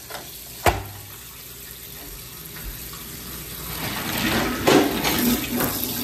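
Hot water running from a kitchen faucet into the sink to melt dumped ice, the flow getting louder in the second half. A single sharp knock comes under a second in.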